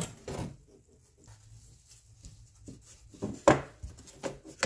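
The metal frame and panel of a vending machine's logo display being handled on a wooden workbench: a few scattered knocks and clatters, with the loudest about three and a half seconds in.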